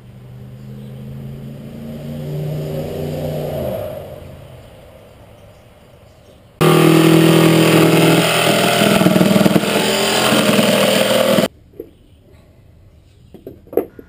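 Corded jigsaw cutting through plywood for about five seconds, starting and stopping abruptly; it is the loudest sound here. Before it, a steady hum swells and then drops in pitch and fades out about four seconds in.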